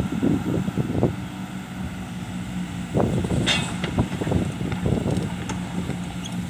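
Hydraulic excavator's diesel engine running steadily, with louder surges of rumble near the start and again about three to five seconds in as it works.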